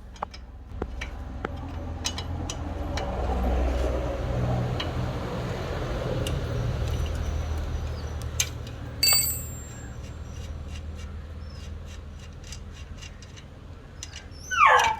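Small metallic clicks and taps of a 16 mm spanner working the front axle nut of an old BSA SLR ladies' bicycle, with low handling noise in the middle and a bright metallic ping about nine seconds in. Near the end a dog gives a loud cry falling in pitch.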